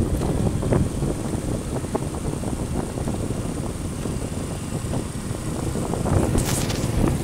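Wind rumbling on the microphone of a moving motorbike, mixed with the engine and tyre noise of the ride. There is a brief hiss near the end.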